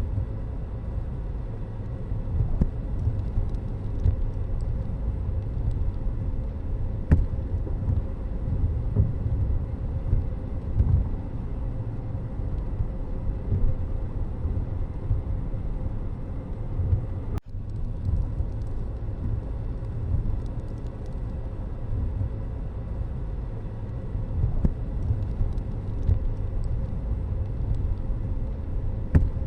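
Steady low rumble of road vehicles, with a sharp click about seven seconds in and a brief dropout about seventeen seconds in.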